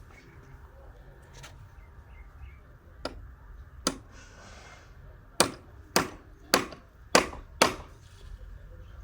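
Sharp striking knocks from a hand tool hitting a hard material during building work. A few single strikes come first, then five quick blows about half a second apart. A brief scraping hiss falls between them.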